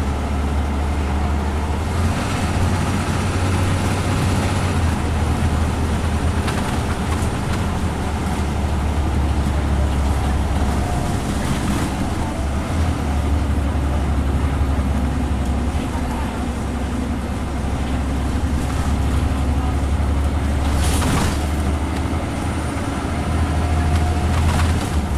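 Scania N94UB bus's diesel engine heard from inside the saloon, kicking down from fifth to fourth in its ZF Ecomat automatic gearbox and then pulling hard with a steady, drill-like drone over road and tyre noise.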